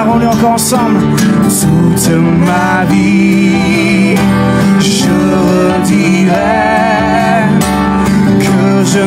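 Worship band music: keyboard and acoustic guitar playing sustained chords, with a wavering melody line above them.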